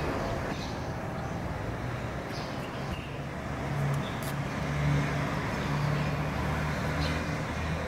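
Road traffic: a motor vehicle's engine running with a low, steady hum over general street noise, growing louder about halfway through.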